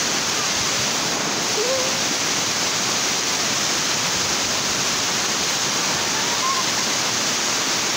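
Steady rushing of a small waterfall: shallow creek water pouring over a low rock ledge and running fast over the stones below.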